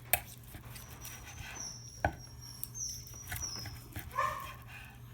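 Knife slicing a cooked sirloin steak, giving a few sharp clicks against the board, the strongest about two seconds in. Faint high squeaks and a short rising whine come from a dog about four seconds in.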